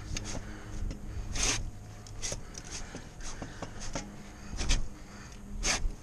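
Short, irregular scrapes and rubbing sounds, four or five loud ones a second or so apart, from a tree climber's gloves and gear working against bark and rope, over a steady low hum.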